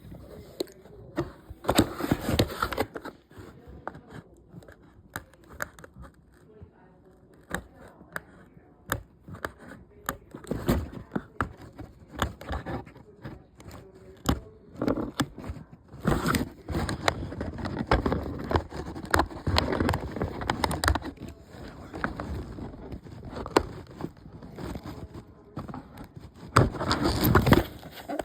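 Toy packaging being handled and opened: irregular crinkling, scraping and tearing of plastic and cardboard with scattered clicks, louder in spells, as a diecast car is worked free of its box.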